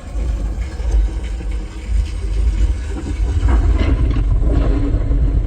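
Dolby Atmos demo track played loud through the car's built-in sound system, dominated by heavy deep bass with sound effects layered over it.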